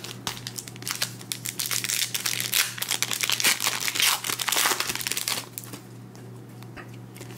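Foil wrapper of a basketball trading-card pack crinkling and tearing as it is ripped open by hand, a dense crackle that dies down about five and a half seconds in to quieter handling of the cards.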